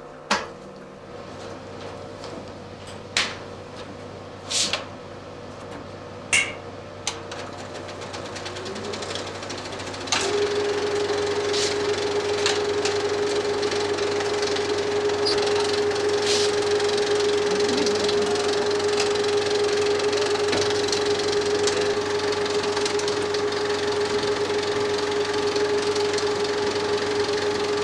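35 mm cinema film projector: a few sharp clicks and clunks, then about ten seconds in the projector starts and runs at a steady speed, a fast mechanical clatter with a steady mid-pitched whine.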